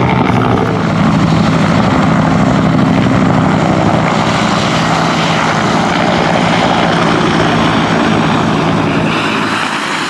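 Military helicopter in flight at close range, its rotor beating and turbine running steadily, easing off slightly near the end.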